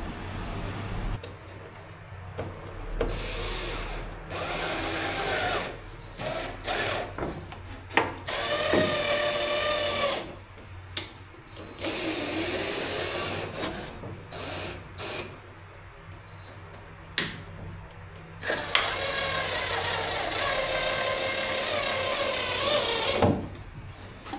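Power drill running in several short bursts, its motor whine rising and falling in pitch as the trigger is squeezed and eased, with the longest burst about four seconds near the end and a few sharp clicks between bursts.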